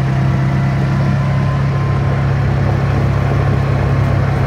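Side-by-side utility vehicle's engine running at a steady speed, a constant low drone with no change in pitch.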